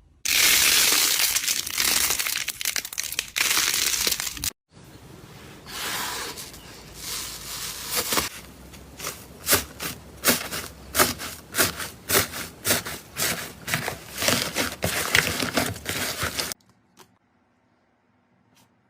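Slime being squeezed and worked by hand: a loud, dense crinkling crunch for about four seconds, then after a brief cut a run of sharp crackling pops, roughly two a second, that stops suddenly near the end.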